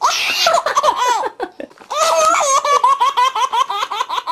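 High-pitched laughter, very high in pitch, broken by a short pause about a second and a half in, then a quick run of 'ha-ha-ha' that stops near the end.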